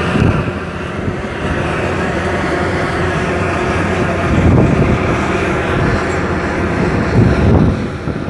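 Heavy diesel truck engine running close by, a steady low rumble that surges louder a few times, about four and a half and seven seconds in.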